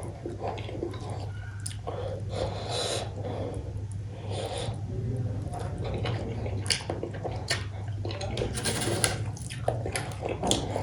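Wet, close-up chewing and lip-smacking of someone eating cooked goat head meat, with many short irregular clicks and smacks. A steady low hum runs underneath.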